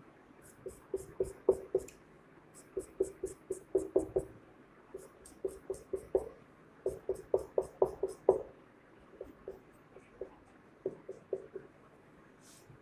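Felt-tip marker squeaking on a whiteboard in quick short strokes, drawing rows of hatch lines: runs of several strokes a second with brief pauses between them.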